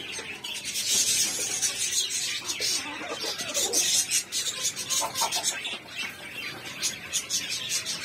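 A flock of aviary finches chirping, a dense chatter of many short, high calls.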